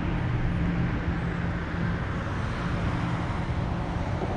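Steady drone of distant highway traffic with a hiss of rain falling on the lake.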